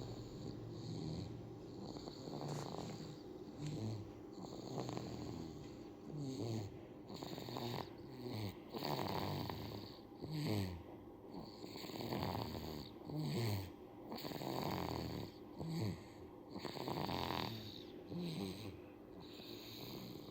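Baby snoring in its sleep: noisy breaths repeating about every one and a half seconds, louder through the middle stretch.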